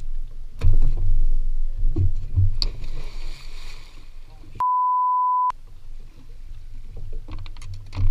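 Wind rumbling on a camera microphone aboard a small boat, with heavy thumps and a rush of splashing water as a man falls overboard. About four and a half seconds in, a steady high censor beep lasting about a second.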